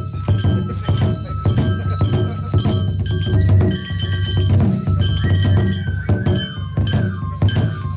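Shishimai festival music: a taiko drum keeping a steady beat under a Japanese transverse flute melody of held, sliding notes.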